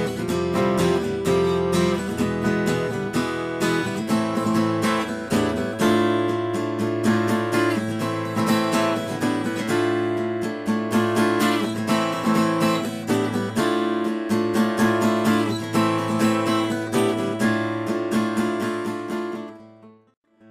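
Background music of acoustic guitar playing, with many plucked and strummed notes. It fades out near the end.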